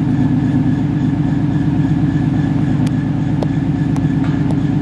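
2018 Ford Mustang GT's 5.0-litre V8 idling steadily and loudly through a straight-piped exhaust with an X-pipe and no mufflers. A few faint clicks come in the second half.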